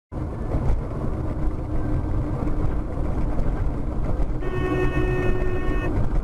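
Steady road and engine noise from a moving vehicle. A horn sounds one steady note for about a second and a half past the middle.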